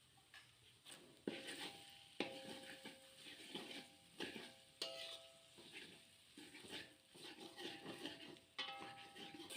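A spatula scraping and stirring in a frying pan, mixing a ground chili, garlic and shallot paste into scrambled egg, with several sharp metal clinks that ring briefly.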